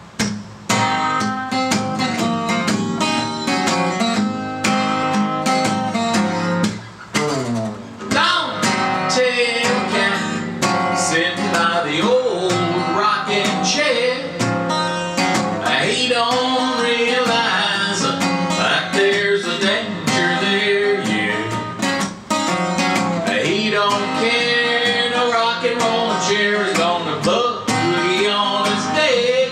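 Acoustic guitar strummed steadily, with a man singing along from about eight seconds in.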